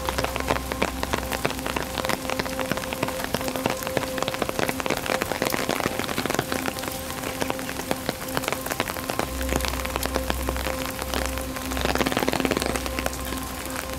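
Steady rain, with dense drops pattering close by on an open umbrella overhead. A faint steady hum runs underneath, and the rain swells briefly a little louder near the end.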